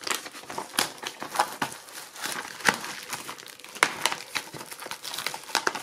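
Thin plastic shrink wrap on a Blu-ray case being picked open and peeled off: irregular crinkling and crackling of the plastic.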